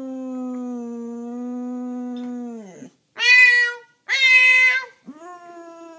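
Boxer dog howling in one long, steady note that drops and breaks off about three seconds in. Then come two loud, high meowing sounds, each under a second, and the dog starts howling again near the end.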